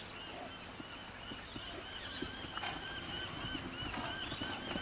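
Outdoor rural ambience: a high chirping call repeats several times a second throughout, with a louder, brief call about two and a half seconds in.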